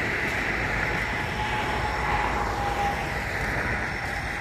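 Steady hum of road traffic, with a faint, even whine running through it.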